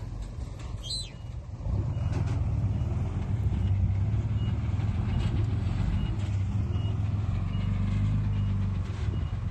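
Heavy diesel engine of earthmoving equipment running under load, a steady low drone that gets louder about two seconds in. Faint high beeps repeat under it from about four seconds in.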